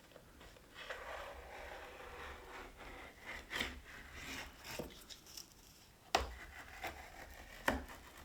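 Faint rubbing and scraping of hands handling the iMac's lifted display panel and case, with a few sharp clicks, the loudest about six seconds in.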